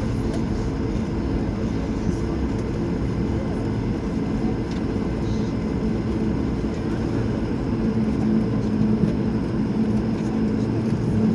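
Airbus A220 cabin noise during taxi: its Pratt & Whitney PW1500G geared turbofans idling as a steady low rumble and hum. The level rises a little about eight seconds in.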